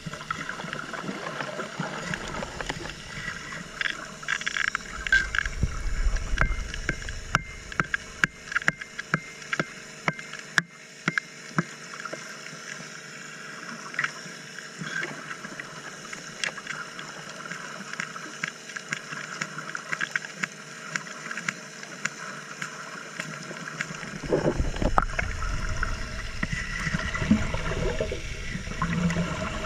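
Underwater sound of a dredge diver prying at a bedrock crack with a steel bar: sharp clicks and scrapes of metal on rock, with rumbling bursts of exhaled air bubbles from the regulator, over the steady hum of the dredge engine carried through the water. The clicks are thickest in the first third, and the bubble rumble swells again near the end.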